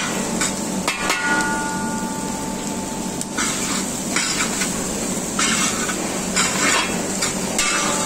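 Steel spatula stirring okra in a metal kadhai over a steady sizzle, scraping and knocking against the pan. A knock about a second in leaves the pan ringing for a couple of seconds.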